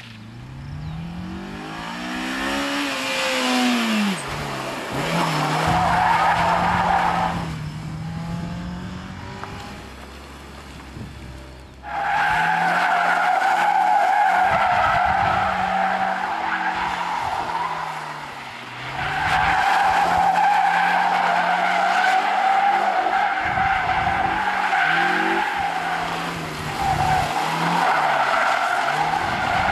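Honda S2000's four-cylinder engine revving up as the car approaches, then held at high revs while the rear tyres squeal continuously in a drift. The squeal starts suddenly about twelve seconds in and dips briefly twice as the car circles.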